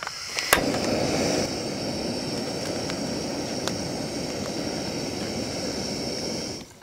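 Gas camp stove burner under a kettle, running with a steady rushing hiss. It starts with a sharp click about half a second in and cuts off abruptly near the end.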